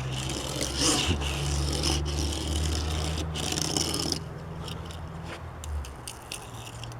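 Die-cast toy police car's small wheels rolling and scraping across a surface, in runs broken by short pauses for about four seconds, then a few light clicks.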